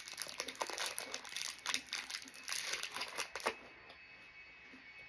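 Crinkling of a plastic snack wrapper being opened and handled, a dense run of crackles that stops about three and a half seconds in.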